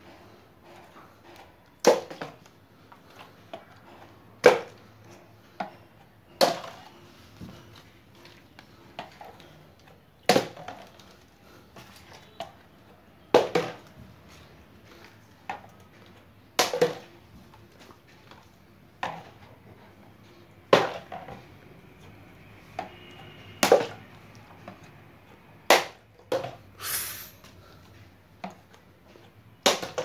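Small plastic water bottle flipped again and again, landing with sharp clacks and thuds on a Rubik's cube and the mat beneath it, about a dozen times every two to three seconds. One brief scraping rustle about three quarters of the way through.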